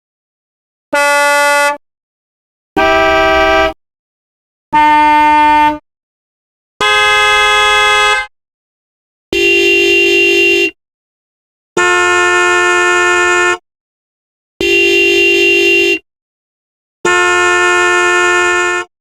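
Car horn blasts, eight of them one after another, each a steady held honk of one to two seconds. Each has a different pitch, with dead silence between them.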